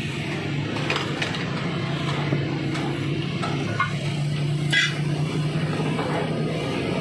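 Steady low motor drone with a few scattered sharp clicks and knocks, the loudest about five seconds in.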